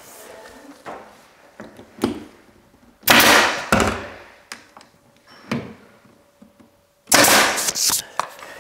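Nail gun firing nails into a timber dado rail: two loud sharp shots with a short rush of noise, about four seconds apart, with lighter taps and clicks between.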